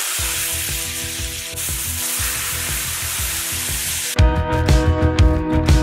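Starchy pasta water hitting a hot stainless steel pan of browned sausage and tomatoes, hissing and sizzling steadily as it deglazes the stuck-on bits, with faint music underneath. About four seconds in it cuts to louder background music with a beat.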